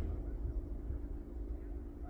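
Low, steady rumble of a motor vehicle's engine running, with a steady hum over it.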